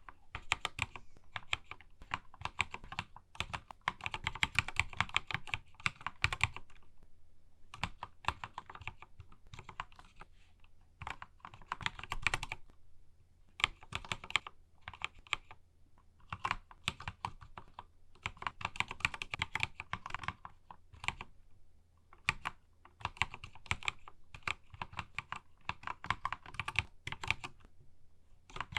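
Mechanical keyboard typing: a Keychron K2 fitted with Akko Matcha Green switches and keycaps. The keystrokes come in quick runs of clicks, broken by short pauses of a second or so.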